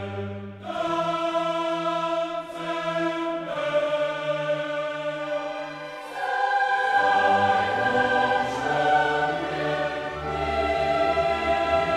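Choral music: voices singing long held chords that change every second or two.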